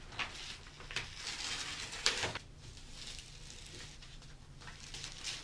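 Paper backing being peeled slowly off vinyl lettering on transfer tape: the paper sheet rustling and crinkling under the hands, loudest about two seconds in, then fainter.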